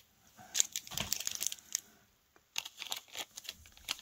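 Small plastic zip bag crinkling and rustling as it is handled, in irregular crackles with a short pause about two seconds in.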